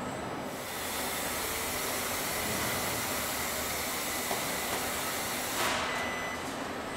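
Car body shop floor with industrial welding robots at work: a steady hiss for about five seconds that ends in a brief louder rush, over the plant's background din.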